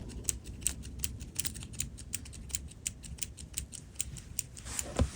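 Uni Kuru Toga Advance 0.5 mm mechanical pencil's push button clicked over and over, several clicks a second, feeding the lead out; a louder knock comes near the end.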